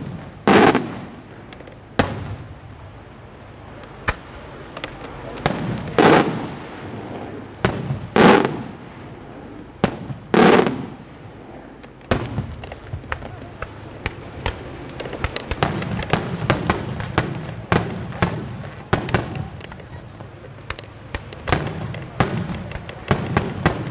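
Aerial firework shells bursting overhead: a series of heavy booms a couple of seconds apart with echoing tails, then from about halfway a dense, rapid run of sharp cracks and pops.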